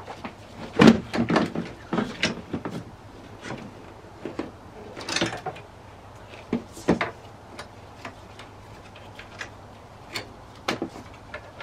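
Plastic scuttle cowling panels and their clips clicking and knocking as they are worked loose with a hand tool and lifted out of the engine bay. The clicks and knocks come irregularly, with the loudest cluster about a second in.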